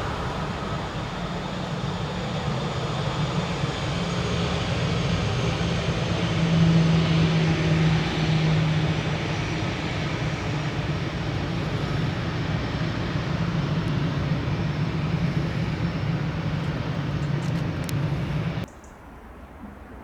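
Airbus A319 airliner's jet engines at takeoff power: a steady roar with a faint whine that slowly falls in pitch, loudest about seven seconds in. Near the end the roar drops away suddenly.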